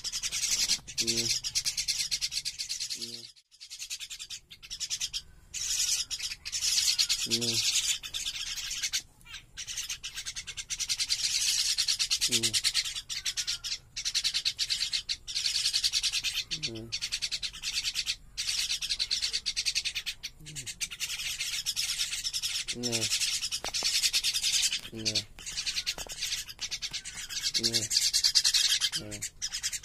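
Young common mynas giving harsh, hissing begging calls with beaks gaping while being hand-fed, a near-continuous rasping chatter that drops out briefly several times. Short low-pitched sounds recur every couple of seconds under it.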